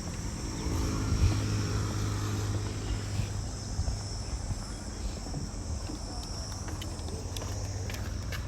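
Outdoor ambience: steady high insect chirring over a low, even engine hum, with faint voices.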